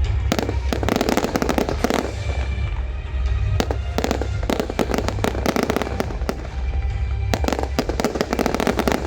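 Aerial fireworks going off in quick succession: sharp bangs mixed with dense stretches of crackling, the thickest just after the start and again near the end.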